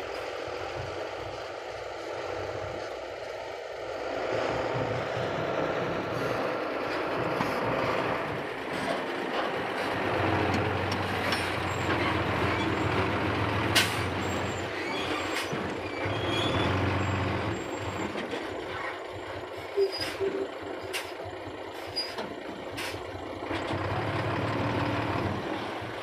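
Diesel dump truck engine running as the truck manoeuvres on loose dirt, its hum swelling and easing, with a few sharp clicks in the second half.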